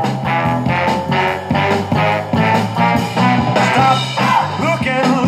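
Recorded music playing from a vinyl record on a Sony PS-LX520 turntable, heard through the stereo's speakers: a song with a steady beat and instruments.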